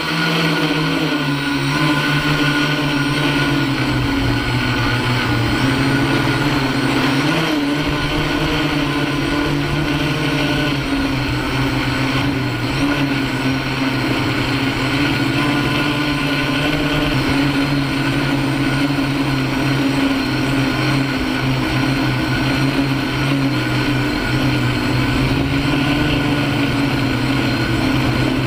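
Home-built MikroKopter Hexa hexacopter's six electric motors and propellers droning, heard close up from a camera fixed to the frame. The drone rises in pitch in the first second as the craft lifts off, then holds steady with small shifts in pitch as it manoeuvres. Strong wind rumbles on the microphone.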